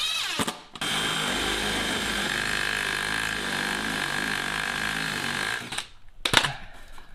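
Cordless DeWalt driver running a self-tapping screw into a plywood seat base. It gives a short rising whine at the start, then runs steadily for about five seconds before stopping, and a single sharp knock follows near the end.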